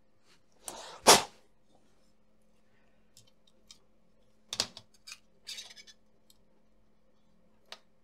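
Laptop cooling fan and its plastic housing being handled and fitted into the open chassis by hand: a sharp knock about a second in, then scattered light clicks and short rustles.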